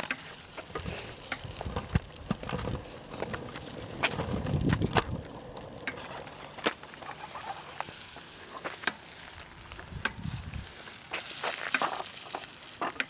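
Handling noise from a handheld camera being swung about: irregular clicks, knocks and rustling, with low rumbles of wind on the microphone about four seconds in and again about ten seconds in.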